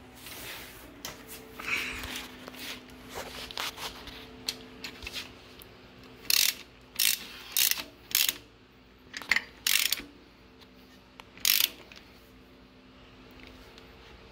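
Socket ratchet clicking in about seven short runs in the second half, snugging a bolt into a nylock nut on a bracket bolted to an engine block. A faint steady hum runs underneath.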